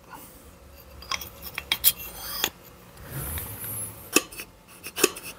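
Small metal clicks and clinks as the parts of an SU carburettor (the suction chamber and its piston) are handled and fitted together by hand, with a short scraping rub about three seconds in.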